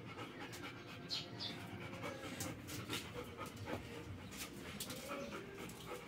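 Golden retriever panting, faint, with scattered small clicks and taps.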